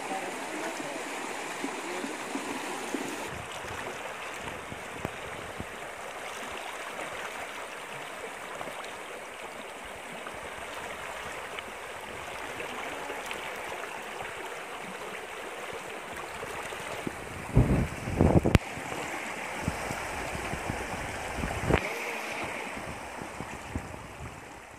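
Steady rushing of a small river pouring over rocks. About three-quarters of the way through, a few loud low thumps break in, followed shortly by a single sharp knock.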